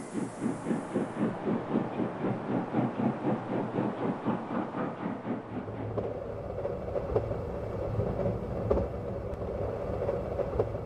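Steam locomotive sound effect: an even, quick rhythm of exhaust chuffs, which about halfway through gives way to a steadier running rumble with occasional sharp clicks.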